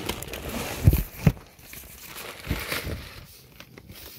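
Plastic packaging wrap crinkling as it is handled and pulled back from a new AC condenser, with a few dull handling bumps, two of them close together about a second in.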